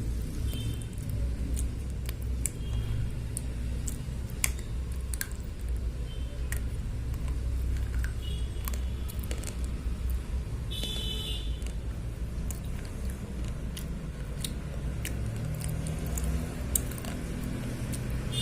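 Slate pencils being bitten and chewed: irregular sharp crunches and snaps over a steady low rumble, with a few short high-pitched beeps.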